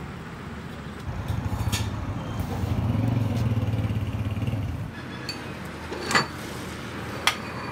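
A low motor rumble swells for about four seconds and fades, then two sharp metallic clinks about a second apart as steel tools strike a lathe's four-jaw chuck.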